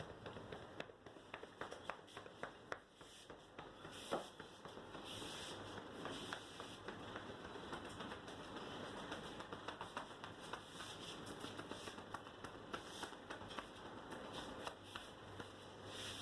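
Hands working over a head and hair in a massage: steady rustling of fingers rubbing through the hair, with many quick taps and clicks, one sharper click about four seconds in.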